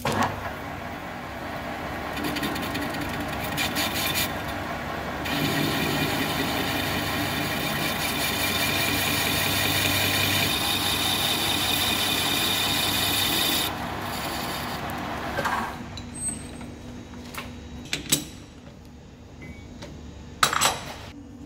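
Metal lathe turning a steel ring with a carbide WNMG insert: a steady cutting noise with a pitched ringing note over it, louder from about five seconds in. The cut stops suddenly past the middle and the lathe runs down. Two sharp metallic clicks come near the end.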